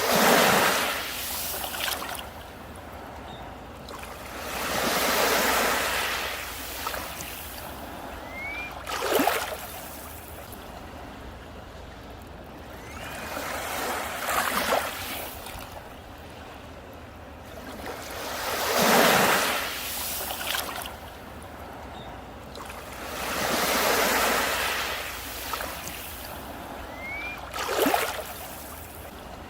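Ocean waves breaking on a beach, a surge of surf about every four to five seconds that swells and falls away, some ending in a sharper crash.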